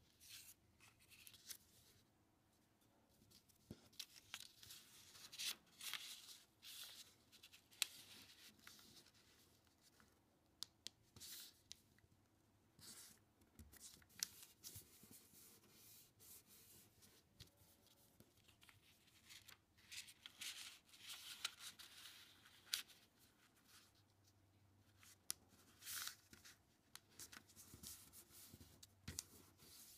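A sheet of origami paper being folded and pressed flat by hand: faint, irregular paper rustling and swishing, with a few sharper ticks.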